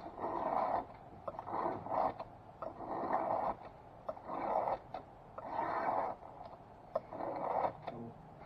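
A knife blade stroked back and forth across an oiled sharpening stone: rasping scraping strokes about once a second, each under a second long.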